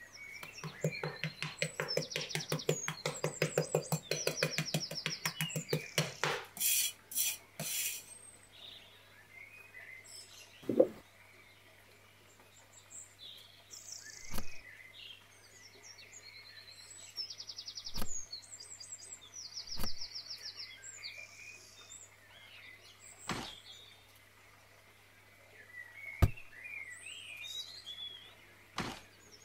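Small hand-worked pieces of a miniature model being handled: a rapid rhythmic scraping, about five strokes a second, for the first six seconds, then a few sharp clicks, then scattered single taps and knocks as small parts such as a roof piece and figurines are set down. Birds chirp now and then.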